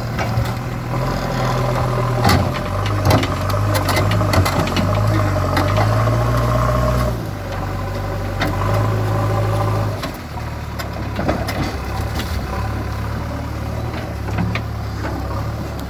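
JCB 3DX backhoe loader's diesel engine running and changing pitch as its load shifts, with a series of sharp knocks in the first third as the machine works a large stone.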